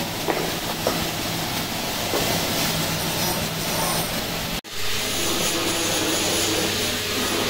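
Electric buffing machine running steadily, its motor humming under the rushing noise of the buff working stainless steel. A few light clicks come near the start, and the sound cuts out for an instant about two-thirds of the way through.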